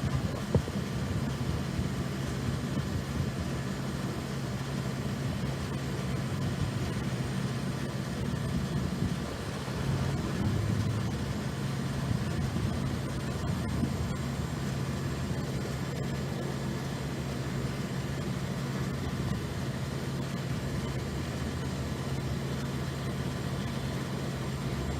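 Steady low machine hum under a constant rush of noise, unchanging throughout.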